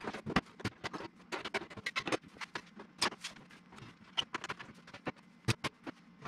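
Aviation tin snips cutting through a sheet-metal duct pipe: a quick, uneven string of sharp metallic snips and crunches, several each second, as the blades bite along the cut.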